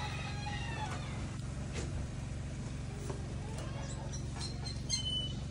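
Farmyard animals calling in a goat pen: a wavering crow-like call tails off in the first second, then goats bleat in short calls around three to four seconds in, over a steady low hum.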